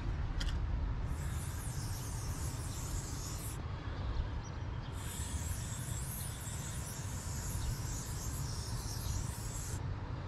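Aerosol spray-paint can hissing in two bursts as an outline is sprayed onto a brick wall: the first starts about a second in and lasts about two and a half seconds, the second follows after a short pause and lasts about five seconds. A steady low rumble runs underneath.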